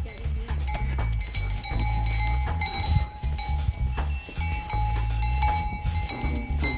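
Bells clinking and ringing on a string of walking Bactrian camels, over a steady low rumble of wind on the microphone.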